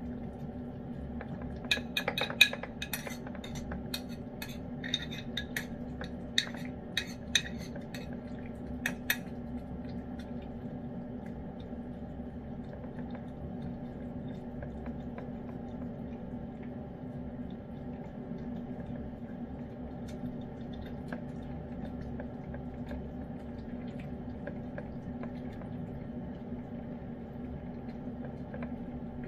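A metal spoon clinking and scraping against a dish of wet cat food, a run of sharp clinks during the first nine seconds or so. A steady low hum runs underneath throughout.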